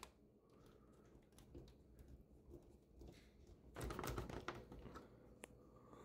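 Mostly near silence, broken about four seconds in by a short run of faint clicks and rattles as the plastic display cover of a ductless mini-split indoor unit is worked loose with a screwdriver, then a few single ticks.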